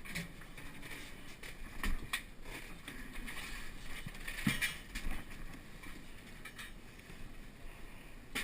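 Water heater tank being shifted and worked into position, muffled: scattered knocks, creaks and scrapes, with louder knocks about two seconds in and again about four and a half seconds in.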